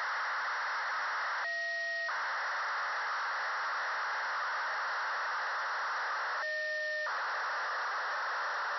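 FUNcube-1 (AO-73) satellite's BPSK telemetry downlink, demodulated in SDR receiver audio as a steady radio hiss. Twice, about five seconds apart, the hiss briefly gives way for half a second to a few steady tones.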